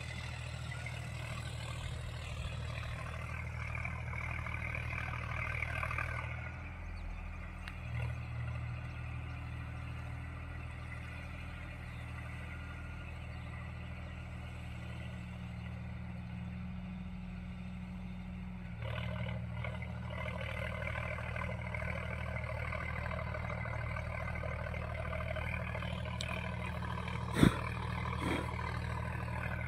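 Sonalika DI 35 tractor's diesel engine droning steadily as it pulls a rotavator through the soil, heard across the field; the drone eases about a quarter of the way in and picks up again about two-thirds of the way through. A single sharp knock near the end.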